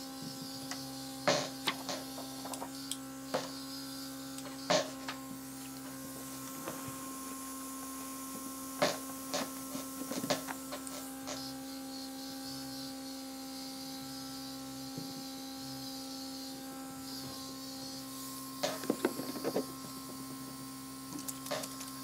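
Airbrush makeup compressor running with a steady hum, while the airbrush gives a faint hiss of air that comes and goes. Scattered sharp clicks and taps sound as the airbrush is handled, with a cluster of them near the end.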